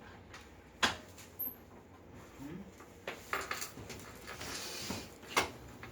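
Several short, sharp clicks and a soft rustle from a patient being handled and shifted on a chiropractic treatment table.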